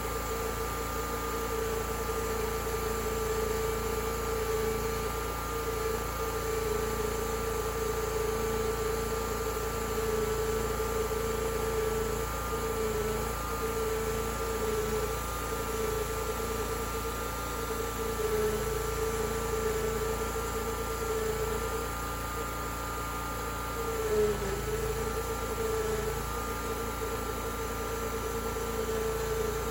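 Homemade wide sawmill running steadily through a cut in a 32-inch spruce log, with a steady hum and a higher whine. The pitch dips briefly with a louder moment about 24 seconds in.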